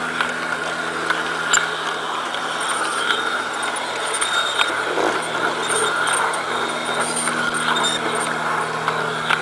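LGB G-scale model streetcar running along garden track: its electric motor and gearing give a steady hum, with scattered clicks from the wheels on the rails.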